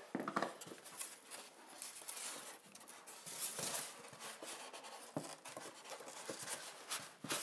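Polystyrene foam packaging insert being handled, scratching and rustling against itself and the box, with a few light knocks as small rubber feet are taken out and set down.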